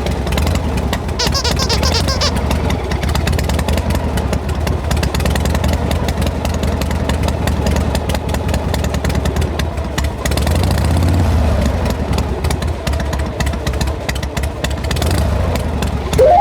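Toy vehicle running with a steady low engine-like drone and dense rattling clicks, with a brief high warbling tone about a second in.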